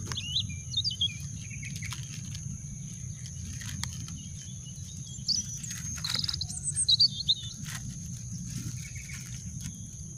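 Small birds chirping in short twittering phrases, loudest a few seconds in, over a steady low rumble and a constant high drone. A plastic bag of crackers crinkles as it is torn open.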